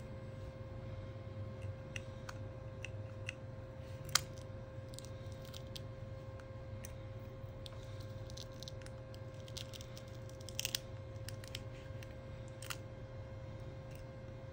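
Plastic spudger working inside an opened Google Pixel 3, making scattered small clicks and taps against the phone's frame and parts. The loudest comes about four seconds in and a quick cluster near eleven seconds, all over a steady faint hum.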